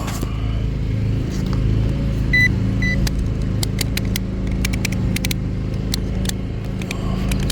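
Two short, high beeps from a metal detector or pinpointer over a steady low hum, then a run of sharp clicks and scrapes as a buried target is dug and pinpointed.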